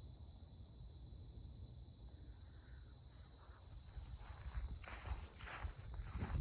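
Crickets chirping in a steady, high-pitched chorus; from about halfway through, crunching footsteps on the trail join in, one after another.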